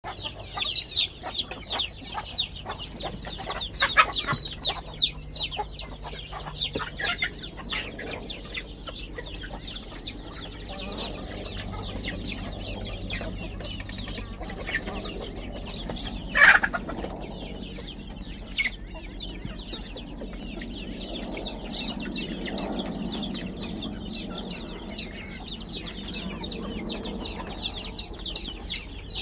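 A flock of chickens clucking and chirping steadily while feeding, with a run of sharp pecking clicks at the feed pans in the first several seconds. One loud squawk stands out about halfway through.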